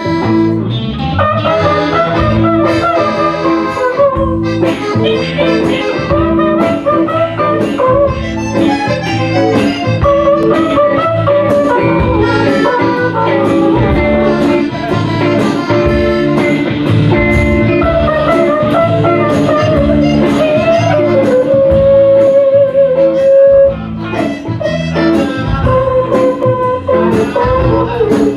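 Live band playing an instrumental break in a chanson song, with guitar over a steady beat. A single long note is held about three-quarters of the way through, and the level briefly dips after it.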